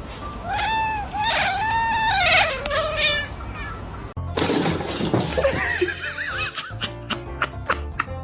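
A cat's drawn-out, high meows, several in a row over about three seconds. Then, about four seconds in, background music with a steady beat starts.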